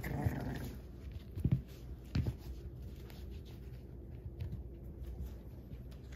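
American bully puppies scuffling in play on a rug: scratchy paw sounds and a couple of soft thumps about one and a half and two seconds in, with a short puppy growl right at the start.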